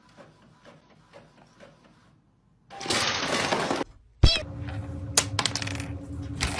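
A sudden sharp crash about four seconds in, followed by scattered cracks and clinks. Before it, a second of loud rushing noise, and near the start only faint ticks.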